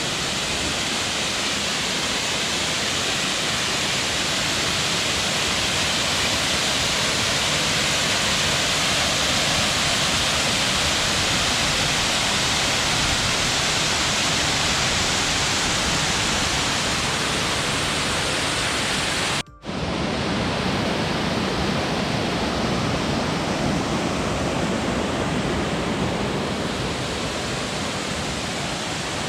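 Waterfall rushing, a steady, even noise of falling water. About two-thirds of the way through it cuts out for a split second, then comes back slightly duller.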